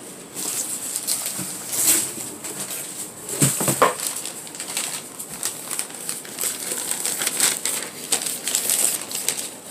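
Newspaper packing rustling and crinkling as it is pulled off a potted orchid, in irregular crackles, with one short rising tone about three and a half seconds in.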